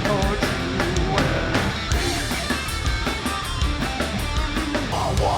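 Live heavy rock band playing: distorted electric guitars over a pounding drum kit.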